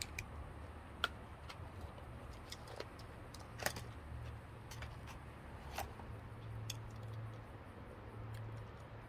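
Small motorized display turntable turning, a faint low hum with irregular light clicks and ticks.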